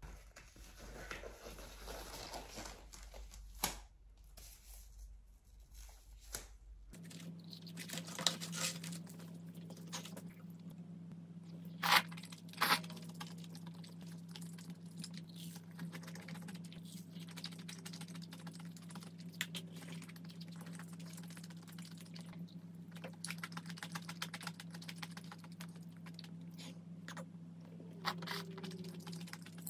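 Close-miked eating sounds: pulling apart and biting into crispy fried chicken, with sharp crunches; the loudest come about twelve seconds in. Rustling at the start and a steady low hum underneath.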